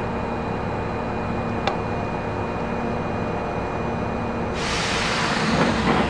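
Inside an Osaka Municipal Subway Series 10 car: a steady hum of the train's equipment with faint steady tones and a single click, then a sudden hiss of compressed air about four and a half seconds in that fades away.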